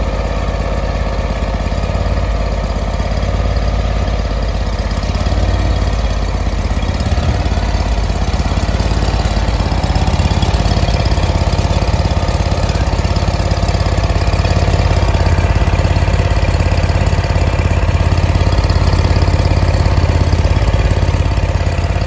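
The 35 hp Briggs & Stratton gas engine of a Vermeer SC362 stump grinder running steadily, a little louder after about nine seconds.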